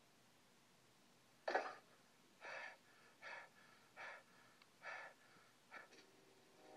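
A voice breathing hard in about six short, breathy gasps, a little under a second apart, starting about a second and a half in.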